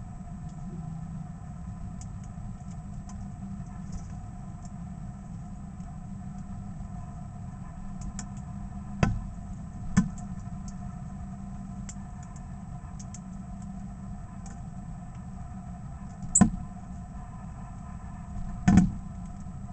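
A steady mechanical hum, like an idling engine, runs throughout. Four sharp knocks or clatters stand out over it: two about a second apart near the middle and two more near the end.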